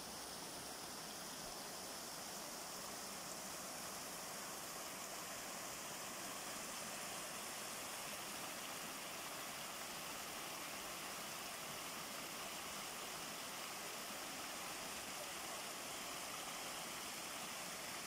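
Garden waterfall: water splashing down a series of stepped stone ledges into a pond, a steady rushing hiss.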